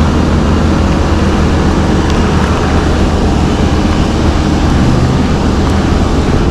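Steady roar of river water pouring over a dam, loud and unbroken, heaviest in the low end.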